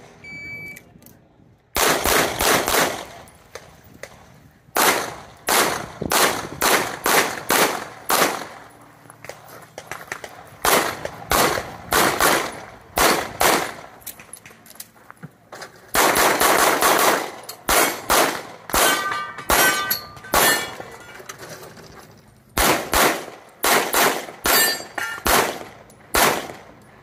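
Shot-timer start beep, then a handgun fired in fast strings of shots over about 25 seconds, the strings broken by short pauses as the shooter moves between positions through an IPSC stage. Steel targets ring after some of the shots about two-thirds of the way through.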